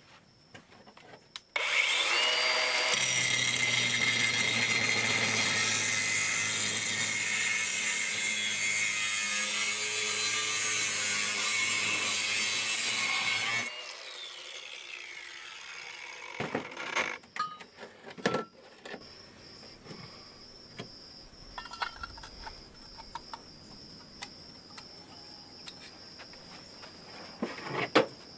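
Cordless angle grinder with a cutoff wheel spinning up and cutting through steel tubing for about twelve seconds, then switched off and winding down with a falling whine. A few light knocks and clinks follow.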